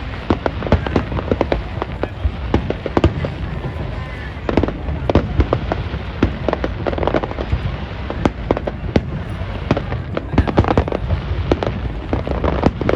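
Aerial fireworks display: a dense, continuous run of bangs and crackling bursts, many overlapping, with no pause between them.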